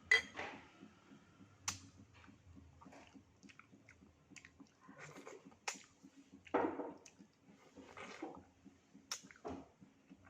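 Close-miked eating sounds of mung bean porridge with durian ice being chewed, with short wet mouth sounds and sharp clicks every second or so. The loudest burst comes about six and a half seconds in.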